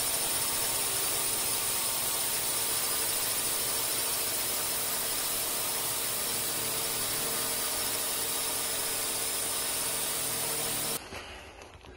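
Multirotor drone's motors and propellers whirring steadily, a loud even hiss with a fixed hum; it cuts off abruptly about eleven seconds in.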